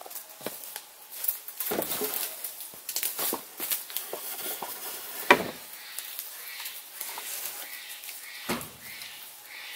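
A round alder pole knocking and scraping against the log timbers of a frame as it is lifted and set in place, with a sharp knock about five seconds in and duller thuds near two and eight and a half seconds. Between them come light rustling and crackling.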